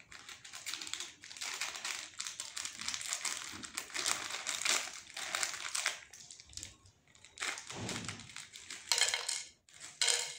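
Plastic snack packet of Kellogg's Chocos cereal crinkling and rustling as it is handled and torn open. Near the end, the dry chocolate cereal pieces are shaken out onto a plate in short rattling spells.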